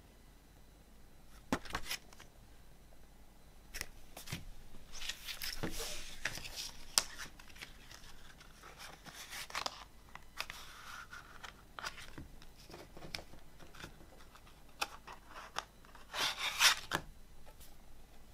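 Paper and cardboard handling: a CD booklet's pages and a cardboard digipak sleeve rustling and clicking under the hands. A louder scraping rustle near the end as the disc is slid out of its cardboard sleeve.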